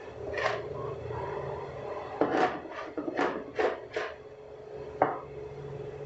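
A hand scraping leftover corn dough from the inside of a mixing bowl: about six short scraping strokes, most of them close together in the middle. Then a single sharp knock, the loudest sound, about five seconds in.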